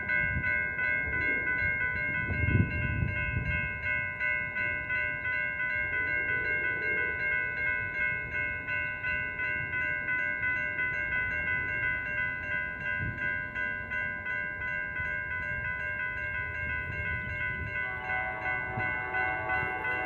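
Railroad grade-crossing bell ringing steadily with a regular pulsing beat while a passenger train rumbles past on the rails. Near the end a cluster of further tones joins in.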